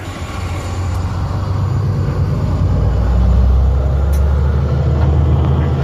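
Diesel engine of a grain truck loaded with wheat pulling away and accelerating, its low drone growing louder over the first few seconds and then holding steady.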